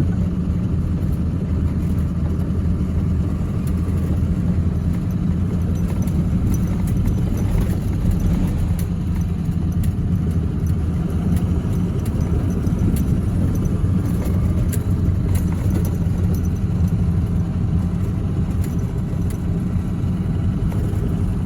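Vehicle engine running steadily under load while driving over a soft snow road, a constant low drone with faint scattered rattles and clicks.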